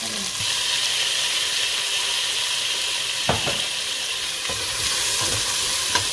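Chopped onions sizzling in hot oil in a steel pot, the sizzle growing louder about half a second in. A wooden spoon stirs them, knocking against the pot a few times.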